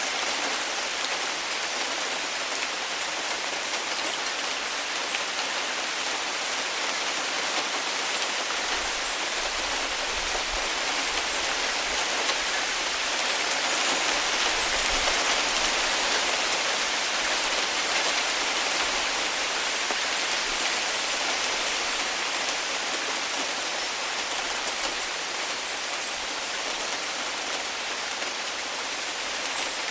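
Heavy rain falling steadily, a dense hiss of drops pattering on surfaces, swelling slightly louder about halfway through.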